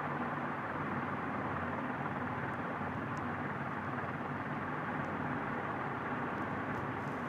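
Steady background hiss with a low hum, and a few faint light clicks.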